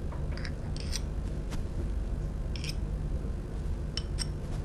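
A metal spoon scraping and clinking against a bowl as butter is scooped out into a frying pan: a handful of short, separate clicks over a low steady hum.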